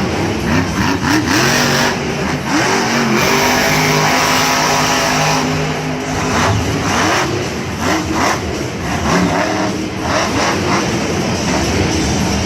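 Monster truck's supercharged V8 engine revving hard again and again, its pitch rising and falling, held high for a couple of seconds near the middle.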